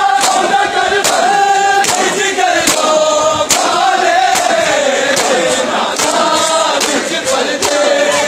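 A crowd of men singing a noha (Shia lament) together in unison, with chest-beating (matam) slaps landing in time a little more than once a second.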